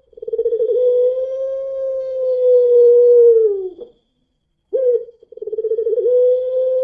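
Puter pelung, a long-voiced strain of Barbary dove, giving two long drawn-out coos. Each opens with a quavering stutter, then holds one steady note for about three seconds before dropping away. The second coo begins about five seconds in after a brief silence.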